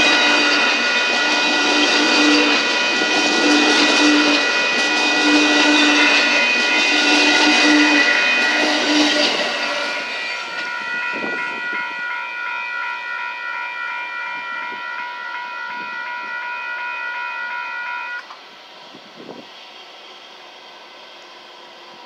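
Bilevel Superliner passenger cars of a passenger train roll by at speed, with steady wheel-and-rail noise that drops away about ten seconds in as the last car clears. A grade-crossing warning bell rings throughout and cuts off about eight seconds after the train noise fades.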